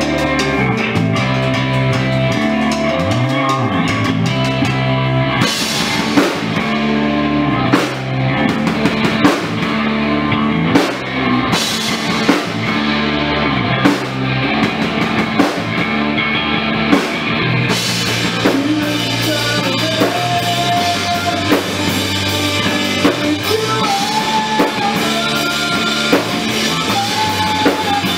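Rock band playing live: a drum kit keeping a steady beat under guitar, with a singer's voice over the top.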